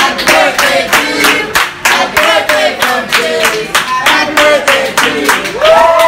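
A group of restaurant servers singing a birthday chant in unison while clapping in a steady rhythm, about four claps a second. Near the end the voices rise together into one long held final note.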